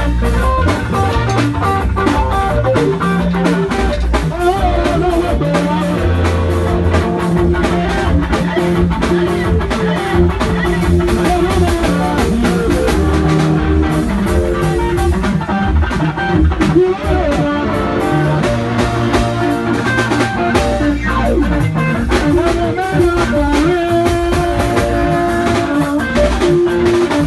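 Live band music: electric guitar playing over a drum kit keeping a steady beat.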